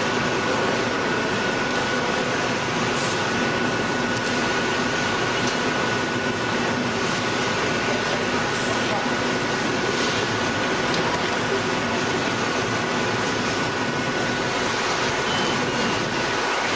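Steady industrial machinery noise from a hot coil-spring winding machine at work: an even rumble and hiss with a constant high whine, and a few faint clicks.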